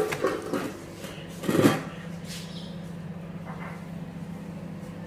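A few knocks and clatters of a metal spatula and a stainless steel roti container as a cooked paratha is put in. The loudest comes about a second and a half in. A steady low hum starts then and carries on.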